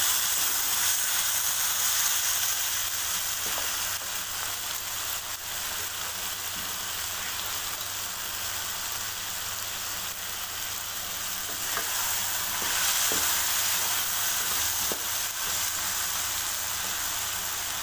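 Diced potatoes, onions, tomatoes and green chillies sizzling as they fry in a metal wok, with a spatula stirring them and scraping the pan now and then. No water has been added: the vegetables cook in the tomatoes' own juice.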